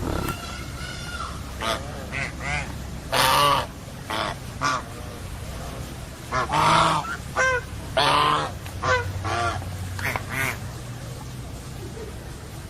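Domestic geese honking in an irregular series of loud, harsh calls, some short and some drawn out, with the loudest near the middle.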